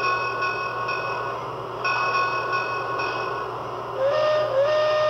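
Electronic sound effects from a Toy Story Ready To Play battery-operated toy train set: a train-whistle chord sounds twice, about a second and a half each, then a lower whistle tone bends up and holds near the end, over a steady hiss.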